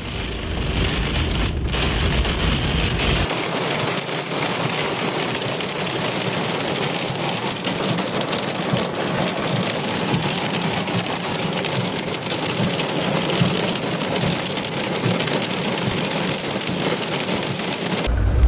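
Heavy rain pouring down in a steady, dense hiss. For the first three seconds a low rumble sits under it, which cuts off abruptly about three seconds in.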